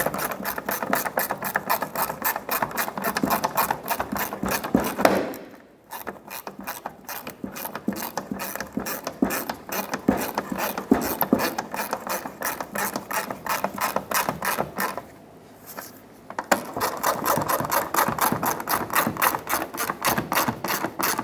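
Hand ratchet clicking quickly as a mounting bolt is snugged up, in three long runs broken by short pauses about five and fifteen seconds in.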